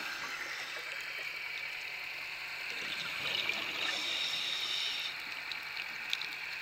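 Underwater ambience: a steady watery hiss with scattered faint clicks.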